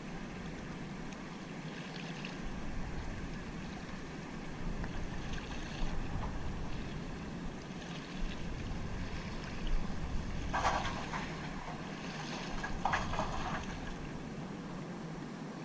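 Steady rushing noise of river water and wind buffeting the microphone, with a few short louder rustles or splashes, two of them about two-thirds of the way through.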